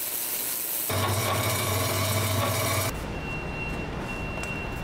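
Metalworking machinery noise in three abrupt cuts: first a steady hiss, then about a second in a louder electric hum with a low drone, then from about three seconds a quieter stretch with a thin high whine that breaks off briefly. It cuts off suddenly at the end.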